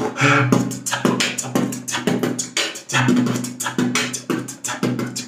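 Background music with a quick, steady percussive beat.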